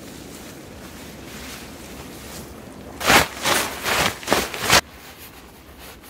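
A small ground tarp being shaken out in the air: a quick run of about half a dozen loud flapping snaps over less than two seconds, starting about three seconds in and stopping abruptly.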